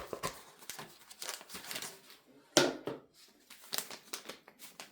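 Scattered clicks and rustles of small parts and packaging being handled on a desk, with one louder sharp knock about two and a half seconds in.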